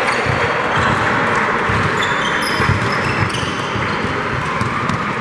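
Basketball game on a gym floor: the ball bouncing and players' footfalls thudding, with sneakers squeaking in short, high chirps over the steady noise of the hall.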